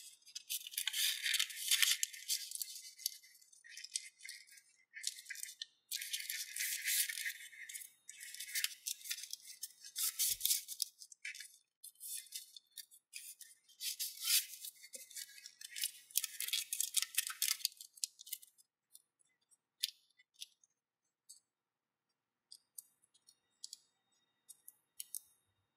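Origami paper rustling and crackling in bursts as it is folded and its creases pressed by hand. After about eighteen seconds it thins to a few light ticks of the paper being handled.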